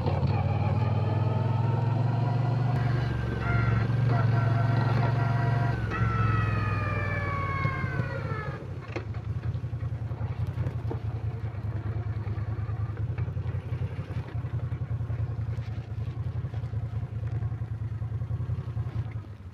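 Moto Guzzi V9 Bobber's air-cooled V-twin on its stock exhaust, running on the move with a whining tone that falls in pitch as the bike slows, about six to eight seconds in. It then settles to an uneven, pulsing idle.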